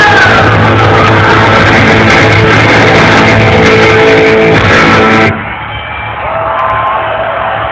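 Live punk rock band with loud electric guitars, bass and drums playing the last bars of a song; the music stops suddenly about five seconds in, leaving a quieter crowd with whoops and cheers.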